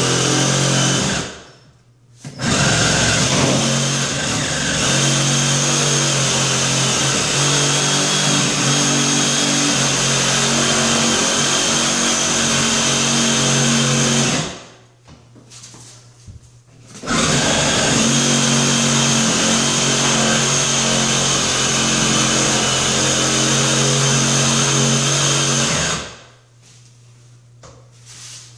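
Cordless reciprocating saw cutting through a fiberglass tub surround panel, running in three long stretches: it stops briefly about a second in and again for a couple of seconds around the middle, then stops a few seconds before the end.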